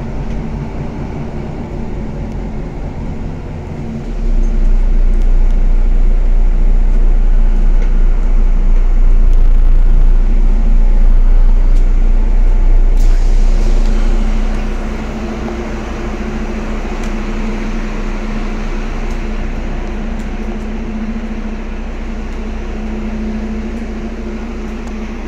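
City bus running: engine and road noise that swells to a loud low rumble about four seconds in and eases about fifteen seconds in to a steadier hum.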